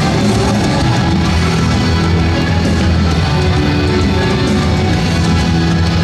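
Loud heavy rock music with guitar, playing steadily.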